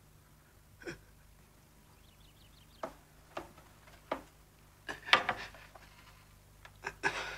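A few brief, scattered sounds of movement and breath in a quiet small room, the loudest about five seconds in.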